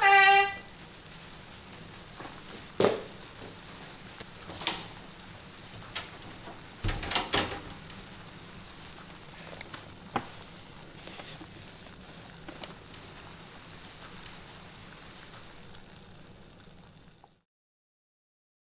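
Faint rustling and scratching with scattered soft knocks and clicks over a steady hiss: something stirring under a bed. It cuts off into silence near the end.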